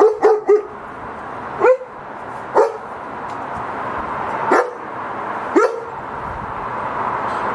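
German Shepherd barking: a quick run of three short barks, then four single barks spread over the next few seconds.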